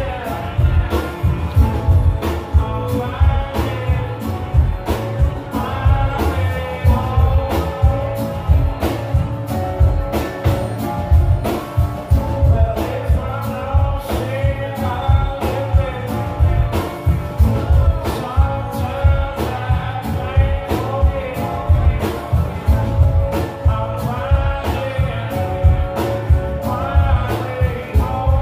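Live band music: a sung vocal over acoustic guitar, electric bass, drum kit and keyboard, with a steady drum beat.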